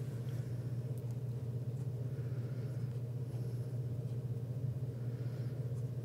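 Steady low background hum, with faint soft brush strokes dabbing acrylic paint onto a small canvas now and then.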